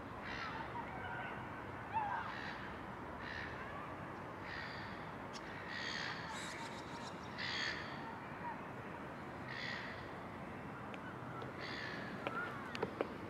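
A crow-type bird cawing over and over, one call every second or two, over a steady background of outdoor ambience. A few sharp ticks come near the end.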